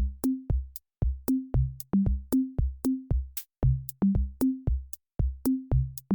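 Background electronic music: a drum-machine beat with kick drum and short bass and synth notes.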